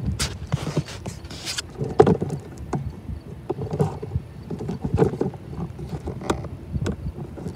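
Wind buffeting a handheld camera's microphone in uneven gusts, with scattered crunches and knocks from handling and steps on gravel ballast. No train is heard.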